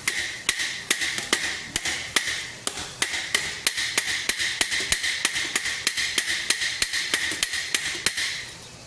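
Hammer striking the steel plates of a great helm, about four quick blows a second, each with a metallic ring; the blows stop a little before the end.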